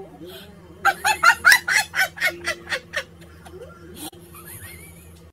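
A woman laughing in a rapid run of about ten short high-pitched bursts, roughly four to five a second. The laughter lasts about two seconds and then trails off.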